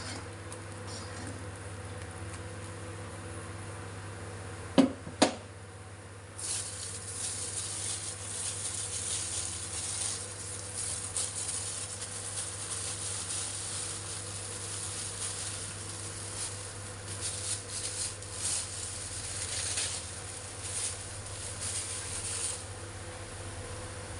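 Chilli-and-garlic broth boiling in a pan, a fast irregular bubbling crackle that comes up about six seconds in, over a steady low hum. Two sharp knocks about five seconds in, as of the spatula set down against the pan.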